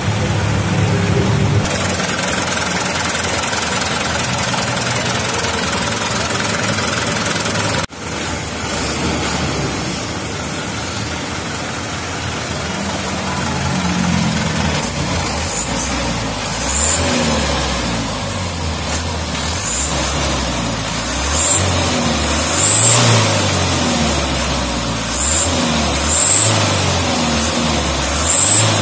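Mitsubishi Canter truck's turbo diesel engine running steadily, then revved in short repeated blips every second or two over the second half. The injection pump has just been recalibrated and refitted.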